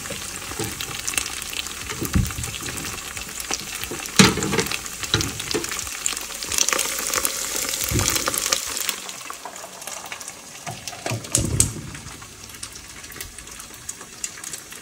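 Rice sizzling as it fries in oil in a pot, with a wooden spatula scraping and knocking against the pan several times as it is stirred. The sizzle drops quieter after about nine seconds.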